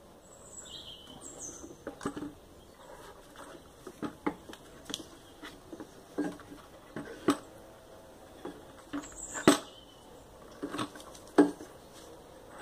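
Intake manifold of a BMW 320d (E46) diesel being rocked loose and lifted off the engine by hand: irregular clicks, knocks and rattles of the manifold against the engine. The two loudest knocks come about nine and a half and eleven and a half seconds in.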